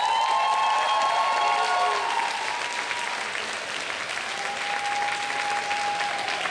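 Audience applauding, with a couple of long high held cheers over the clapping: one rising at the start, another near the end.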